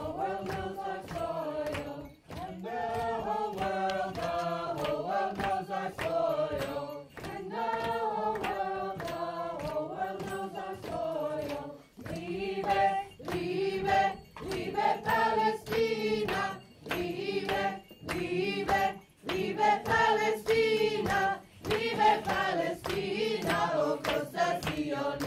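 A group of voices sings a chant-like protest song together in repeated phrases, with short breaks between them. Steady hand clapping keeps the beat at about two claps a second.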